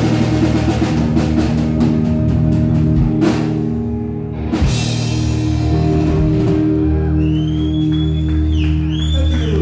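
Live rock band with electric guitar and drum kit bringing a song to its close, letting a final chord ring out. There are cymbal crashes at about three and a half and four and a half seconds in, and high sliding tones come in near the end.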